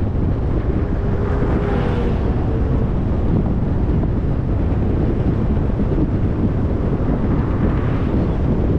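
Wind buffeting the microphone as a low, steady rumble, over the road noise of a vehicle driving along at speed. Brief swells of hiss come about two seconds in and near the end.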